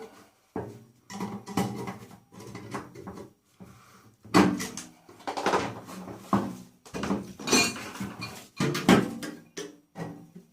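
Metal parts of a microwave oven being handled and pulled apart for scrap: irregular clanks, knocks and rattles with short pauses between them, some of them ringing briefly.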